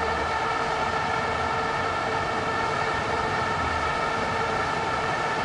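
Stadium crowd noise with a steady drone of several held tones over it, unchanging throughout.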